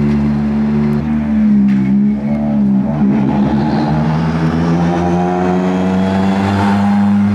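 Rally car engines running steadily at low revs as the cars drive slowly past, one pulling away and a Ford Fiesta rally car coming up; the note wavers about a second in and rises gently in pitch near the middle.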